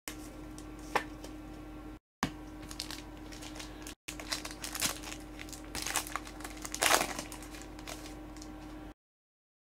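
Trading-card pack wrapper crinkling and tearing as gloved hands rip it open, with a sharp click about a second in and a run of crackles, loudest about seven seconds in.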